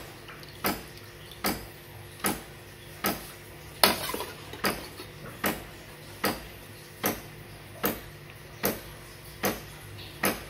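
DeLonghi Dedica EC685 espresso machine pumping descaling solution through in short, even pulses, about one every 0.8 s, over a steady low hum: the automatic descaling cycle near its end.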